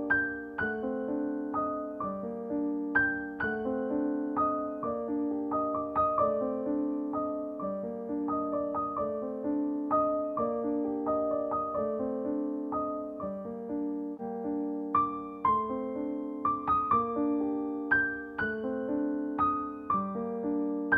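Background solo piano music: a steady stream of struck notes, each ringing and fading.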